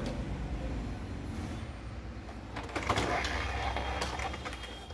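Epson L360 inkjet printer starting a nozzle-check print: a low hum, then from a little past halfway, its motors whirring with clicks as the mechanism gets moving.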